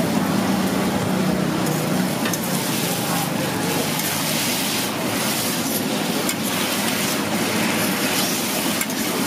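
Noodles sizzling in a large pan of hot oil and sauce as they are stirred and tossed with metal spatulas, with a steady hiss and the occasional scrape of metal on the pan from about two seconds in.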